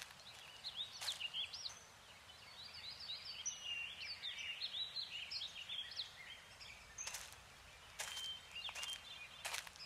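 Small birds chirping and twittering in woodland: a busy tangle of short, high, quickly rising and falling calls. A few sharp cracks cut in, once about a second in and several times near the end.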